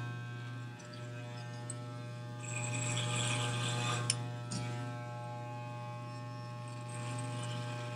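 Electric hair clippers running with a steady buzzing hum, their blades cutting through hair in short passes that are louder around three seconds in. A single sharp click about four seconds in.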